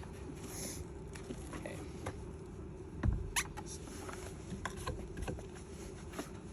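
Scattered small clicks and taps as mirror-mount parts are handled and fitted on a truck door, with one louder knock about three seconds in, over a steady low hum.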